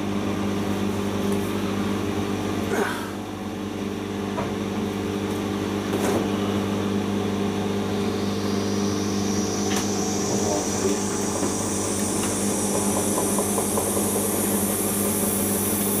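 Siemens Serie IQ WIQ1430 washing machine in its cotton final spin: a steady motor hum, with a high whine that rises steadily in pitch from about halfway through as the drum speeds up, and a few light knocks.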